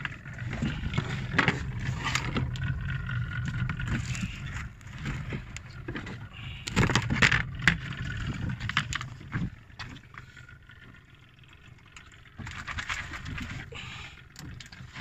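Boots knocking and scuffing on a small boat's deck, with sharp knocks of gear now and then over a low rumble.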